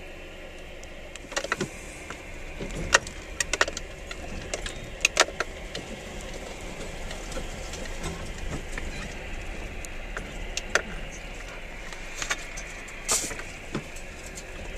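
Vehicle driving along a rough dirt track, with a steady low rumble and sharp knocks and rattles over the bumps, many in the first few seconds and a few more near the end.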